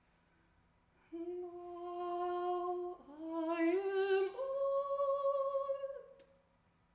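A woman's unaccompanied voice holding long notes in two phrases. The first is one steady pitch. The second steps up with a short upward slide and ends on a higher note with vibrato.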